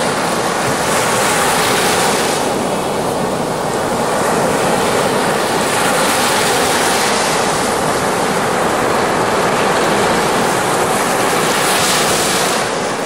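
Baltic Sea surf: small waves breaking and washing up a sandy shore close by, a loud steady rush that swells and eases every few seconds.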